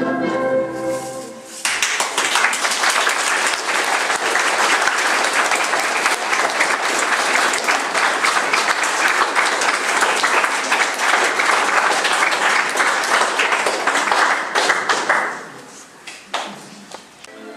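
Dance music ends about a second and a half in, and an audience breaks into applause that runs for about fourteen seconds and then stops abruptly.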